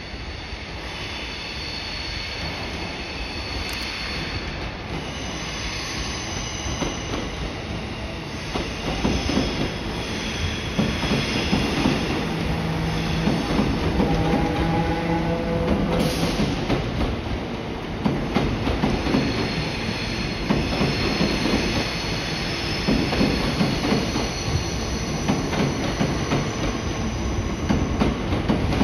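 Royal Mail Class 325 electric multiple unit rolling slowly round a curve, its wheels squealing in high thin tones that come and go, with rapid clicks over the rail joints. The rumble grows louder over the first ten seconds as the train draws alongside, and a low motor hum comes in midway.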